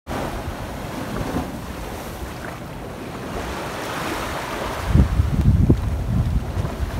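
Small waves washing up on a sandy beach, with wind buffeting the microphone, loudest from about five seconds in.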